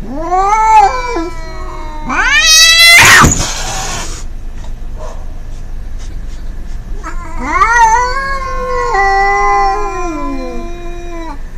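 Cats caterwauling in a hostile standoff, giving drawn-out threat yowls. There are three cries: the second rises sharply and ends in a harsh noisy burst, and the last is long and slowly falls away.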